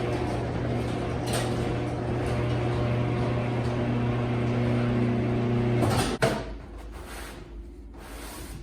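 A steady machine hum that cuts off about six seconds in, followed by a sharp click.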